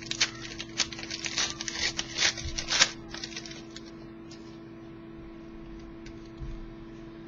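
Wrapper of a pack of football trading cards being torn open and crinkled, with cards handled: a quick run of crackles and rustles. After about three seconds only a steady hum remains.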